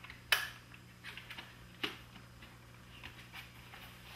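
Scattered clicks and light knocks from a Technics RS-M275 cassette deck's metal and plastic cabinet being handled and turned over on a workbench. The sharpest knock comes about a third of a second in and another near two seconds, over a faint steady low hum.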